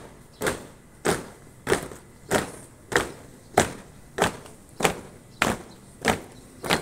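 Boots of a marching squad striking pavement in unison, an even beat of stamped steps about every 0.6 seconds.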